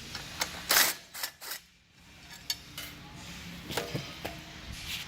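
Scattered metal clicks and knocks from bolts, hand tools and panel parts being handled and set down, the loudest just under a second in.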